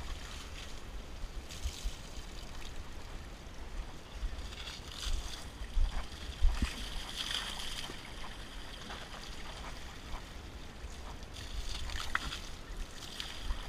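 Buckets of river water being scooped and thrown over an elephant: uneven splashing and sloshing, with a few louder splashes about halfway through. Wind rumbles on the microphone underneath.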